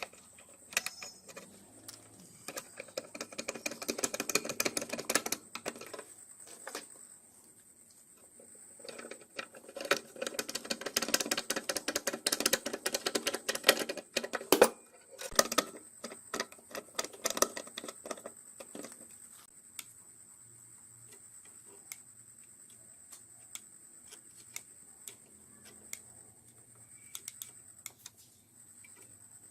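Workshop tool noise from fan restoration work: rapid clicking and tapping, with two louder stretches of a buzzing, rattling tool, one about three seconds in and one from about nine to fourteen seconds.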